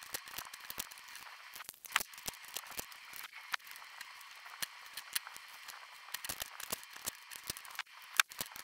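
Folded paper pages of a small handmade photo book being handled and pressed together: scattered small paper clicks and crackles, with two sharper snaps, one about two seconds in and one near the end.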